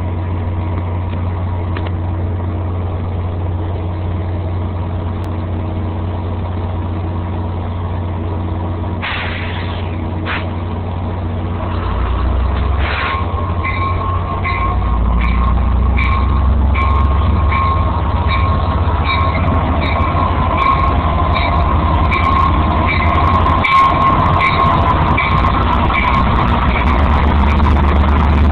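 Metrolink diesel-hauled commuter train arriving at a station platform: a low steady rumble that grows louder about halfway through as the train draws near and passes close. From then on a steady high squeal of wheels or brakes runs under a bell ringing repeatedly, about one and a half strokes a second.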